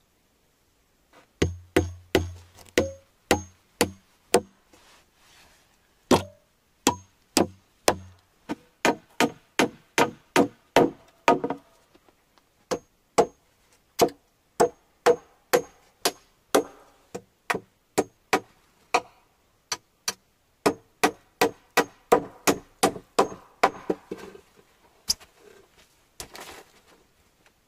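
Hammer driving nails into wooden planks for a floor: a long run of sharp knocks, about two a second, starting about a second in, in several bursts with short pauses. Some strikes carry a short high ring.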